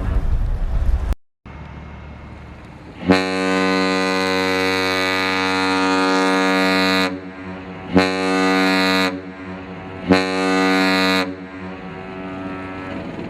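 Great Lakes freighter's steam whistle: one long blast of about four seconds, then two short blasts of about a second each, a rich many-toned chord. One long and two short is the Great Lakes master's salute. A low rumble of wind fills the gaps, and a first blast is cut off about a second in.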